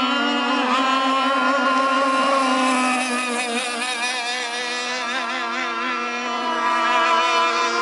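Radio-controlled speedboats running at speed, their engines giving a steady, high-pitched whine that wavers in pitch midway through.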